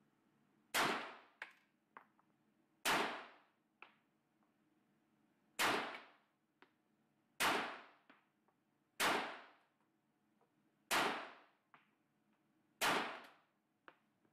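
Seven gunshots from one firearm fired singly at about two-second intervals, each followed by a faint click less than a second later.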